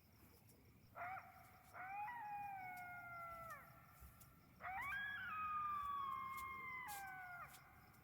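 An animal howling: a short call about a second in, then two long, slowly falling howls, the last one longest. Crickets chirp steadily underneath.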